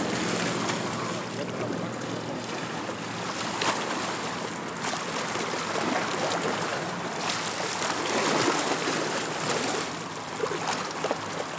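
Lake water splashing as a person wades and swims through it, over a steady wash of waves. A few sharper splashes stand out.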